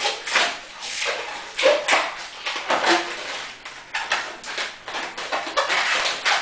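Latex modelling balloons squeaking and rubbing against each other as they are twisted and pushed by hand, in a run of short, irregular squeaks.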